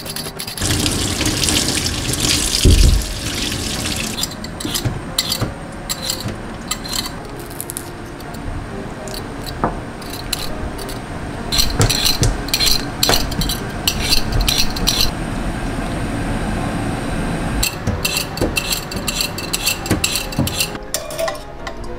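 Water running into a stainless-steel sink, with runs of quick scraping strokes from a hand vegetable peeler, first on a carrot and then on a potato.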